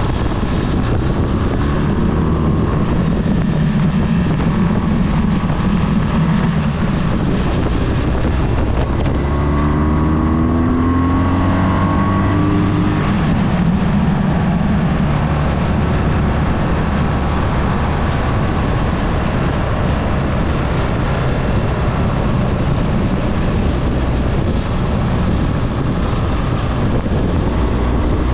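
Onboard sound of a vehicle engine pulling uphill under heavy wind noise, with the revs rising once, about ten seconds in.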